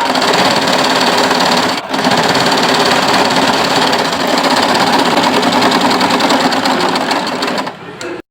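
Singer SM024 electric sewing machine running steadily, stitching fabric, with a brief stop about two seconds in. It slows near the end, then the sound cuts off abruptly.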